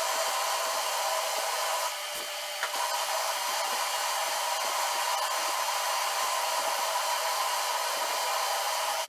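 Homemade lathe running while a twist drill in the tailstock chuck bores into the spinning workpiece, throwing off long curled chips: a steady whir and hiss that dips slightly about two seconds in.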